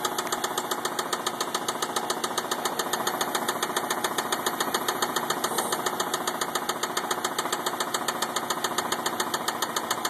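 A 2004 Mazda 6 engine running steadily at idle with a rapid, even knock, taken by the owner for rod knock.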